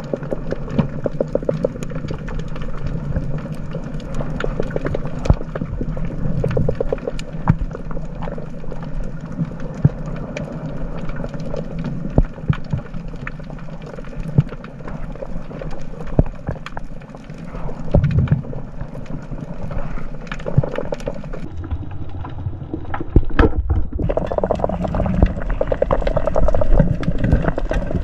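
Underwater sound through a camera's waterproof housing: a dense, irregular crackle of sharp clicks over a low rumble of moving water, growing louder in the last few seconds.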